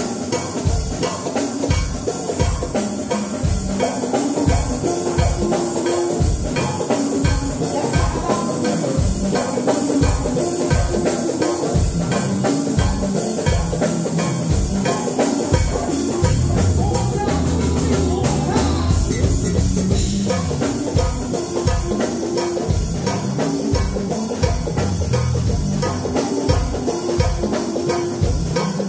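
Live funk band playing, with electric bass guitar, drum kit and congas over a steady kick-drum beat about twice a second.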